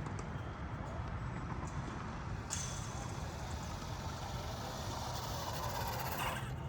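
Radio-controlled model truck driving: a steady low rumble, then about two and a half seconds in a hiss of motor and tyres starts, with a whine that rises and cuts off suddenly near the end.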